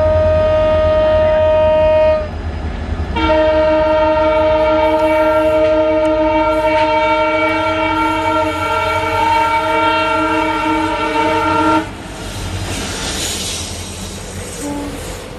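Indian Railways locomotive horn sounding as the train approaches: a held blast that breaks off about two seconds in, then after a short gap a much longer blast of several tones sounding together, lasting about eight seconds and cutting off sharply. After it, the rumble of the oncoming train.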